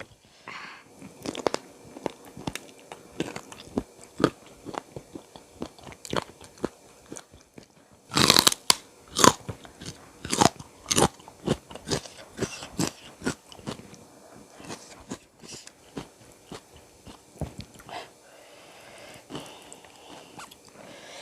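Close-miked mouth sounds of eating: crunchy bites and chewing, with a run of loud crunches about eight seconds in, then steady chewing that grows quieter near the end.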